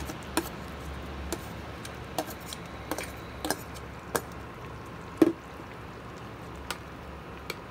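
Metal spoon tapping and scraping inside a stainless steel bowl as a thick, wet mixture is scraped out into a pan of beans, with soft squelches and scattered clinks; the sharpest clink comes about five seconds in. A steady low hum runs underneath.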